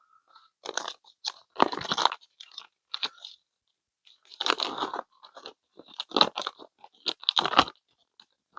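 Plastic hardware bag being opened and handled, crinkling and rustling in irregular bursts as the mounting screws are taken out.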